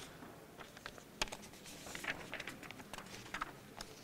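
Faint rustling and scattered light clicks of paper sheets being handled and leafed through, with a sharper click about a second in.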